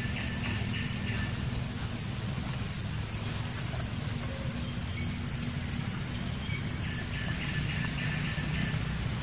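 Steady high-pitched drone of insects in the trees over a low steady rumble, with short trains of quick chirps near the start and again near the end.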